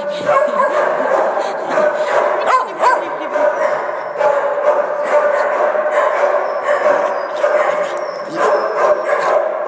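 Several excited dogs crowding close, yipping and whining continuously, with short yelps over the whine.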